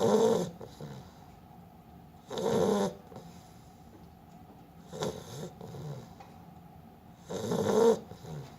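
Beagle snoring in its sleep: four snores about two and a half seconds apart, the third fainter than the rest.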